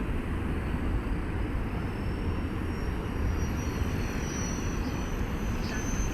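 230S radio-controlled helicopter in flight: a thin, high whine from its rotors and motor that slowly rises in pitch, over a steady low rumble.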